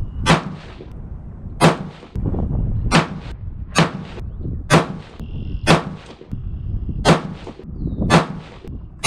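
Nine sharp rifle shots about a second apart from a 224 Valkyrie bolt-action rifle, each followed by a short echo: a 10-shot ladder test of handloads being fired.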